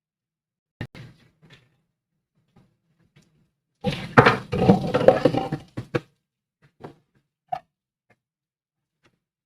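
Kitchen utensils knocking and clattering: a sharp knock about a second in, a dense two-second clatter of knocks about four seconds in, then a few single taps.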